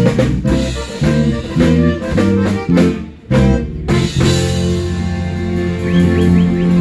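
Live funk band playing short, punchy rhythmic hits, breaking off briefly about halfway, then holding one long chord.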